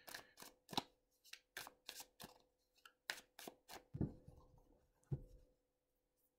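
Thoth tarot deck being shuffled by hand: a run of faint, sharp card snaps, about two or three a second, then two duller knocks near the end as the deck is gathered together.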